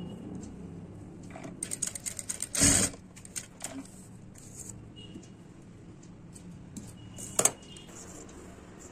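Industrial lockstitch sewing machine running briefly at the start and trailing off. Then a run of light clicks and rustles as the fabric is handled, with two louder knocks, about two and a half seconds in and again near seven and a half seconds.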